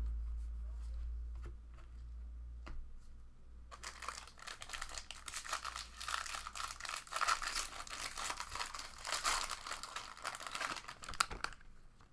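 A foil trading-card pack wrapper being torn open and crinkled by hand. The crackling starts about four seconds in and goes on for about eight seconds, after a low rumble and a few light clicks.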